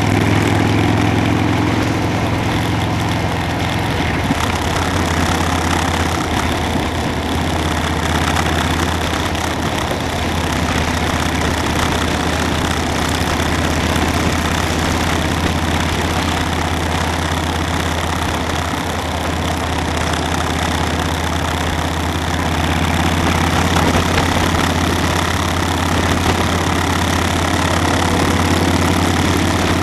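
Motorcycle engine running steadily, a constant low drone with an even hiss above it.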